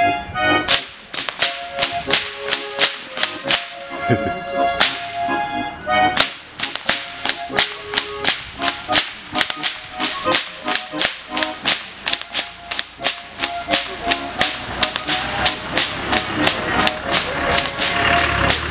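Goaßlschnalzer whip cracking: several Bavarian whips cracked by a group in a fast, steady rhythm of sharp cracks, over music with held notes that is strongest in the first few seconds.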